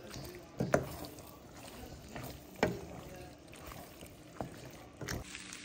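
Wooden spoon stirring whole-grain penne through a creamy sauce in a pan, with about four sharp knocks of the spoon against the pan, the loudest under a second in and near the middle.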